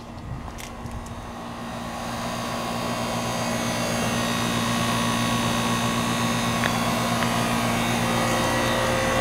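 A steady mechanical hum with several held tones, growing louder over the first three seconds and then holding.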